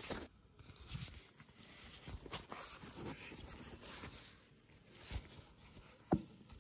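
Faint rustling and scattered soft knocks, with one sharper knock near the end.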